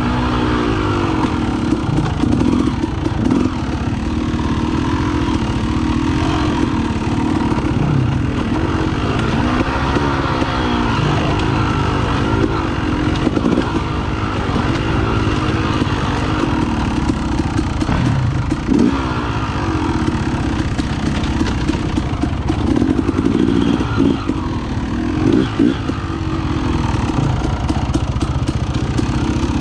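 KTM dirt bike engine under way on a rocky trail, the revs rising and falling over and over as the throttle is worked.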